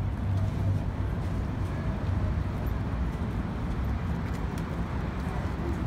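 Steady low rumble of outdoor city noise, with no single event standing out.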